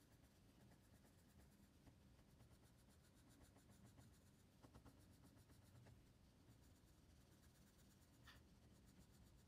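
Very faint scratching of a graphite pencil shading and hatching on drawing paper.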